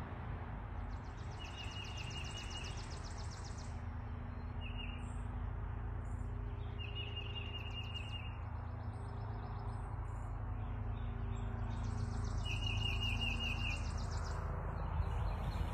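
Songbirds singing: short, rapid trilled phrases repeated every few seconds, with a buzzier high trill alongside, over a steady low rumble.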